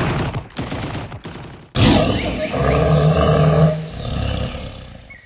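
Sound-effect clips: a brief run of sharp, gunshot-like cracks, then, about two seconds in, a sudden loud animal roar that holds for about two seconds and fades away.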